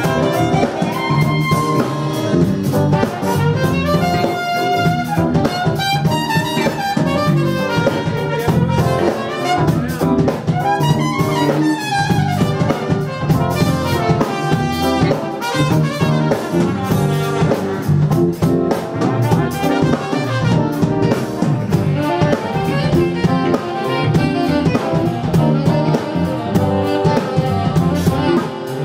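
Live band playing an instrumental passage: a horn section of trumpet and alto and tenor saxophones over a drum kit.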